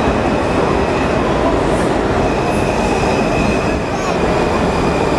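A Washington Metro (WMATA) Red Line subway train running past the platform. Its wheels and motors make a steady, loud rumble, with a thin, steady high whine over it.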